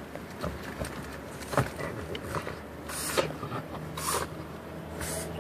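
French bulldog in an inflatable recovery collar thrashing about in a fleece car-seat dog bed: several short scraping, rustling bursts as the collar and her body rub against the bed and the leather seat, with one sharp knock about a second and a half in.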